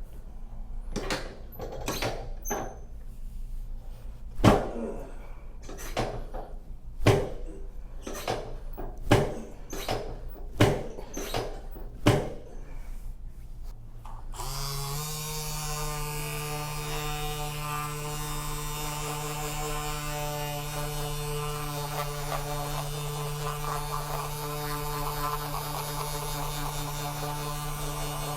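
Sharp knocks about every second or so on the treatment table during a hands-on chiropractic adjustment of the low back, the loudest about four seconds in. About halfway through, a steady electric buzzing hum starts, rising slightly in pitch as it starts, and keeps running.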